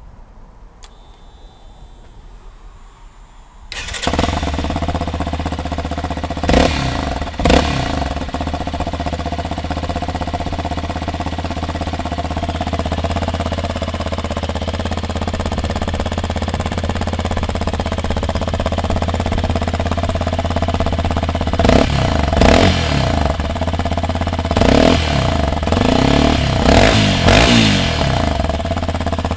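Yamaha Serow 250's single-cylinder engine starting about four seconds in and idling through a Delta Barrel 4 muffler fitted with a stainless low-noise restrictor baffle. Two quick throttle blips come a few seconds after it starts, and a run of revs rises and falls near the end.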